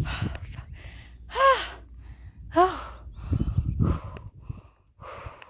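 A hiker out of breath from a hard climb, breathing heavily with two short voiced gasps, about a second and a half in and again a second later. A low rumble comes through around the middle.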